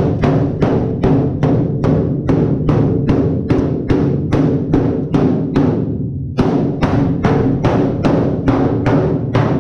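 Mallet blows on the sheet-steel top shelf of a rusty steel cabinet, about four a second, knocking the shelf down; each blow rings on through the hollow steel body. The blows ease off briefly about six seconds in, then carry on.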